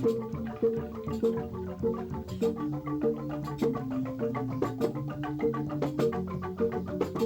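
Music of struck tuned percussion: mallet notes in a steady repeating pattern over a lower ringing part, with a strong beat about every half second.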